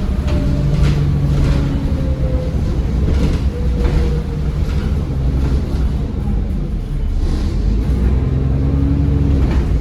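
Bus engine running under way, heard from inside the bus: a steady low rumble with engine hum, and a thin turbocharger whine that slowly falls in pitch. Short knocks and rattles from the bus body come through at several points.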